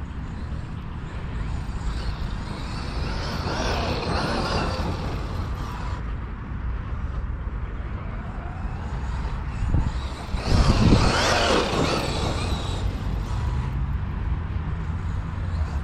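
Wind rumbling on the microphone, with two louder rushes of noise about four and eleven seconds in, the second the louder.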